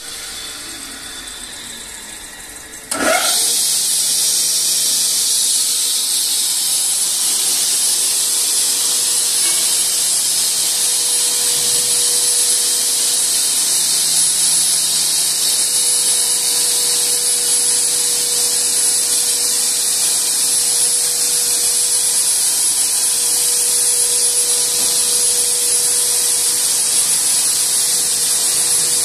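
Veneer cutting machine's electric motors running. About three seconds in, a motor starts with a quick rising whine and the machine jumps to a much louder steady run, a high hiss with a constant whine over it.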